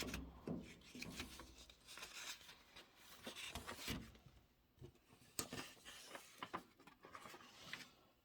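Paper instruction-manual pages being turned and handled: quiet rustles and light clicks, the longest rustle a little past the middle.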